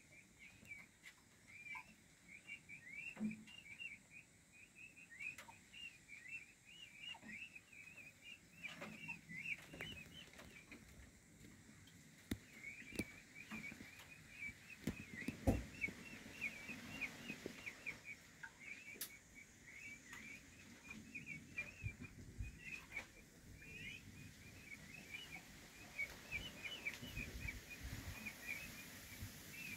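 Young peafowl chicks peeping in a continuous stream of short, rapid, high notes. A few scattered knocks and a low thump about halfway through are heard alongside.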